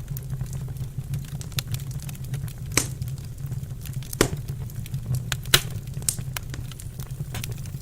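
Wood fire crackling in a fireplace: a steady stream of small sharp crackles, with three louder pops in the middle, over a low steady rumble.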